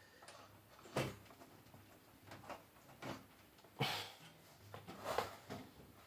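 A PC case's back panel being worked into place: scattered light clicks and knocks as it is shifted against the case frame, the sharpest about a second in and just before four seconds, with a few more near the end.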